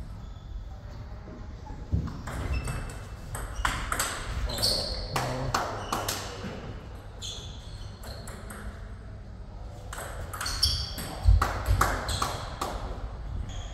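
Table tennis ball struck by rubber-faced bats and bouncing on the table in quick back-and-forth rallies, sharp ringing clicks in two runs with a quieter pause between points.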